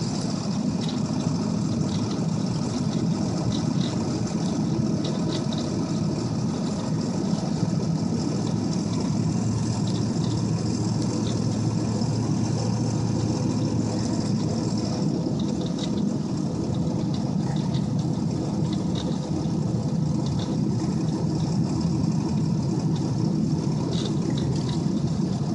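Steady low engine drone and road noise of a 2002 Ford F-250 pickup, heard from inside the cab as it drives on snow-covered roads.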